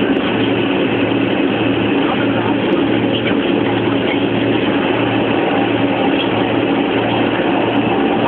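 Hovercraft running under power, its engines, lift fans and propellers making a loud steady noise heard from inside the passenger cabin, with a regular low throb underneath.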